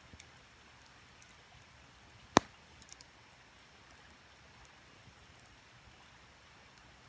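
Wood campfire crackling with sparse small snaps and one loud, sharp pop about two and a half seconds in, over a faint steady hiss of creek water.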